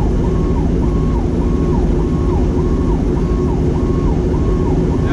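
Fire truck's siren on a fast yelp, rising and falling about twice a second, over the steady drone of the truck's engine and road noise.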